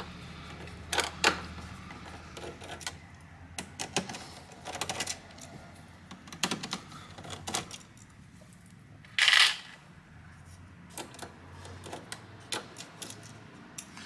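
Scattered small clicks and ticks of a screwdriver backing screws out of an all-in-one PC's plastic chassis, with a louder rattling scrape about nine seconds in.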